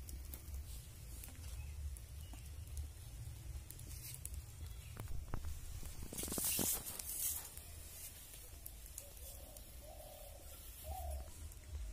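Water splashing and sloshing in a metal pan as a chicken is pushed down into it by hand, loudest for a second or so about six seconds in, with a few light knocks just before.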